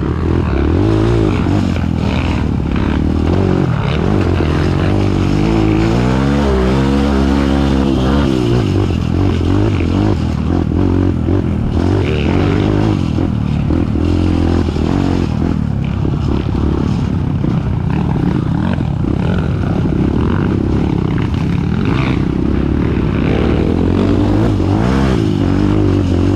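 Kawasaki KLX single-cylinder trail-bike engine running under way, its revs rising and falling as it is ridden, with a long rise and fall about six to eight seconds in.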